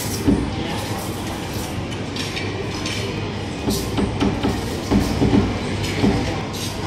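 Meat cleaver chopping char siu (Chinese barbecued pork) on a thick wooden chopping block: a run of irregular chops, coming fastest between about four and five and a half seconds in, over steady background noise.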